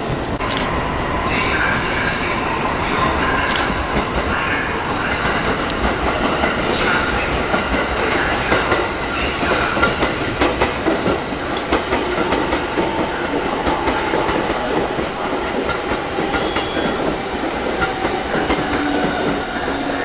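JR 205-series 5000-subseries Musashino Line electric train running past, its wheels clattering over the rail joints and points, with a few sharp clacks in the first several seconds.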